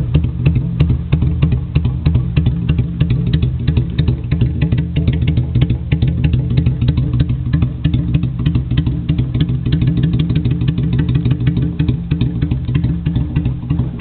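Vento V-Thunder 250 cruiser's V-twin engine idling steadily, its exhaust pulses coming fast and even.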